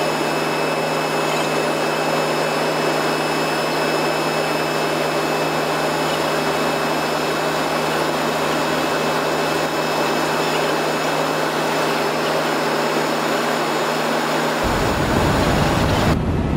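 Helicopter cabin noise in flight: a loud, steady rush from the engine and rotor with a few thin, steady high whining tones over it. The sound shifts abruptly twice near the end, first turning deeper, then duller.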